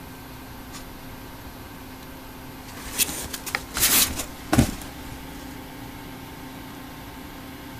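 A Shih Tzu scrambling out of a cardboard box: its paws scrape and rustle the cardboard in a burst of scratchy noise over about two seconds, ending in a thump. A low steady hum sits underneath.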